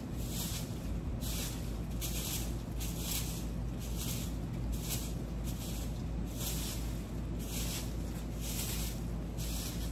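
Straw broom sweeping fallen leaves and twigs across bare dirt, a rhythmic swish about once a second.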